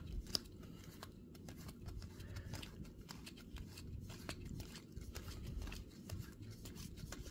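Baseball trading cards being flipped quickly one by one through a stack of 2024 Topps Series 1 base cards: a faint run of irregular clicks and slides of card stock.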